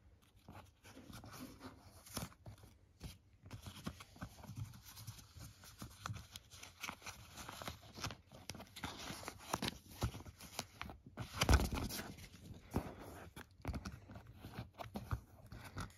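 Paper wrapping crinkling and rustling as it is unfolded from an Apple Magic Mouse, in many small crackles, with a louder knock about twelve seconds in.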